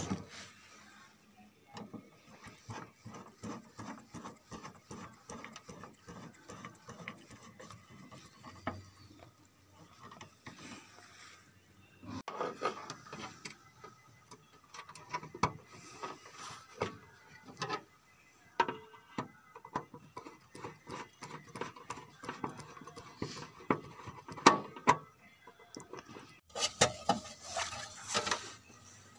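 Irregular runs of small metallic clicks and taps from hand work on an electrical panel's terminals and wiring, busier from about halfway through.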